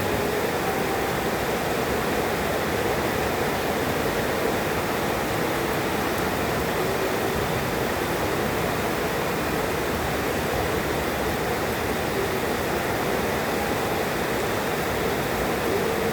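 Heavy rain pouring down in a steady, even rush, with no thunder claps.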